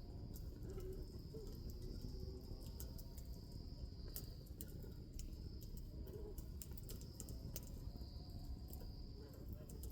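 Wood bonfire crackling, with irregular sharp pops and snaps over a low steady rumble, while insects keep up a steady high trill.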